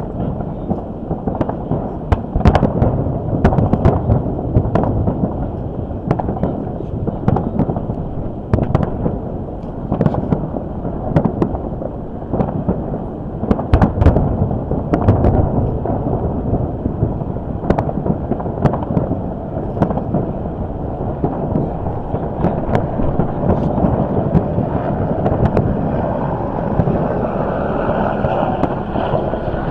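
Aerial fireworks going off in an irregular, rapid run of sharp bangs over a continuous rumble and crackle, with wind noise on the microphone.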